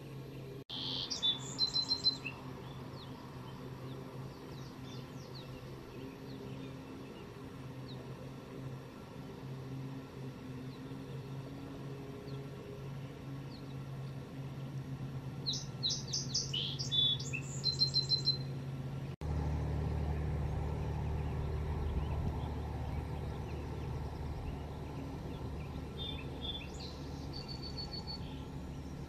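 A songbird sings the same short phrase of quick high notes ending in a trill, three times: near the start, about halfway, and near the end. Underneath is a steady low rumble that becomes louder about two-thirds of the way in.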